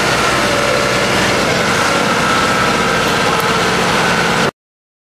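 Engine of a motorized outrigger boat (bangka) running steadily under way, with a rush of wind and water over it. The sound cuts off suddenly near the end.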